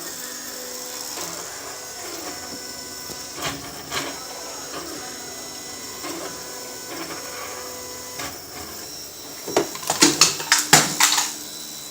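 CraftBot 3D printer running mid-print, its stepper motors whining in short, shifting tones as the print head moves. Near the end comes a quick run of sharp clicks and knocks, the loudest sound.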